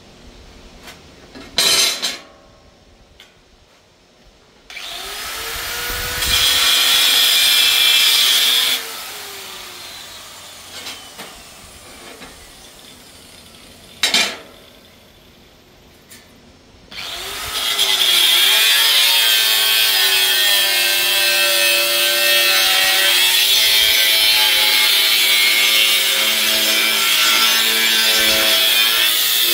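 Handheld electric angle grinder grinding sheet metal: it starts up about five seconds in, grinds for a few seconds, winds down, then grinds steadily again from about halfway through to the end. Two sharp knocks stand out, one about two seconds in and one near the middle.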